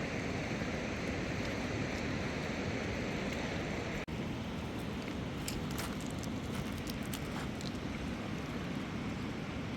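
Steady outdoor rushing noise that cuts out for an instant about four seconds in, with a few faint clicks after it.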